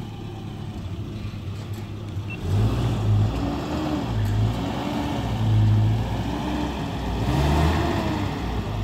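A motor vehicle's engine running, getting louder about two and a half seconds in, its pitch rising and falling as it revs.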